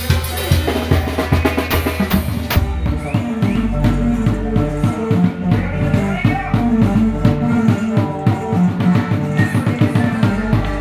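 A live dance band playing with a drum kit keeping a steady beat under bass and other pitched instruments. About two and a half seconds in there is one loud hit, after which held bass notes and sustained chords come forward.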